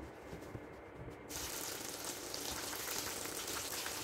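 Sweetcorn pakora batter frying in hot oil: a steady sizzle with fine crackles. It turns suddenly brighter and louder about a second in.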